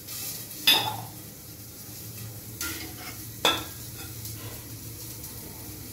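A metal ladle scooping thick pea curry (ghugni) out of a pot and into a steel container, scraping and knocking on the metal, with sharp clinks about a second in and again about three and a half seconds in. A steady low hum runs underneath.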